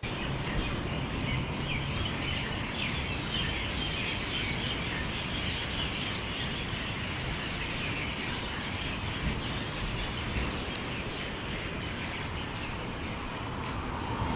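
Many small birds chirping together over a steady low background rumble, with an engine sound growing louder near the end.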